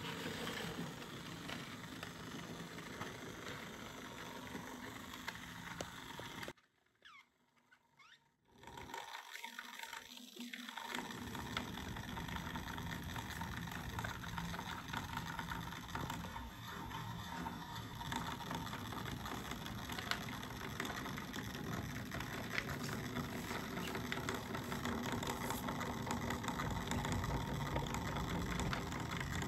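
Märklin H0 model locomotive running on the layout's track: a steady motor hum with wheel and rail noise. It drops to near silence for about two seconds around seven seconds in.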